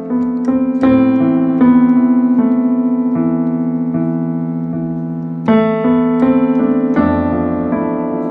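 Instrumental keyboard music in a piano sound: a slow melody of single notes over held chords that fade after each strike, with a fuller chord struck about five and a half seconds in.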